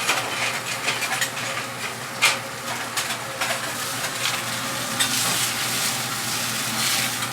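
Food sizzling in a hot pan while it is stirred, with scattered clicks of the utensil against the pan, the sharpest about two seconds in.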